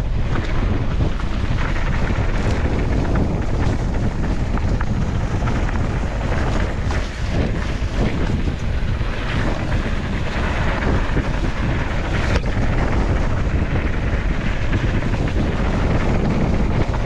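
Wind buffeting the helmet-mounted GoPro microphone during a mountain-bike downhill run, with the tyres running over a dry dirt trail and the bike rattling over bumps.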